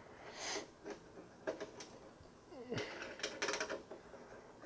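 Phillips screwdriver backing screws out of a PC case's metal expansion-slot brackets: faint scattered metallic clicks and scrapes, in a cluster about half a second in and another around three seconds in.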